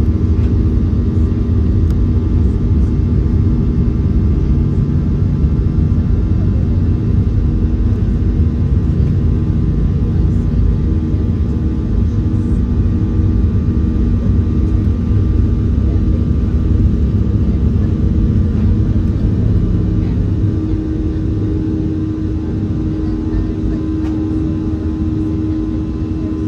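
Airliner cabin noise during the takeoff roll: jet engines at takeoff thrust over a heavy low rumble. About twenty seconds in, the rumble eases a little as a steady engine hum comes up.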